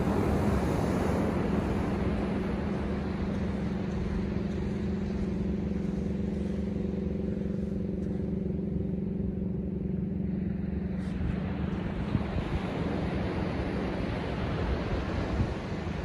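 Ocean surf breaking and washing up a sandy beach, under a steady low engine hum. The wash of the surf grows louder again about eleven seconds in.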